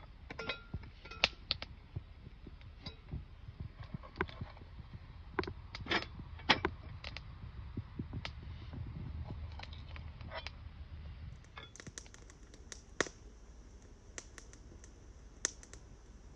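Irregular clinks, knocks and rustles of gear being handled in and out of a cast-iron Dutch oven: a metal lid-lifter hook and a mesh bag of potatoes against the pot. From about twelve seconds in it goes quieter, with only scattered sharp clicks.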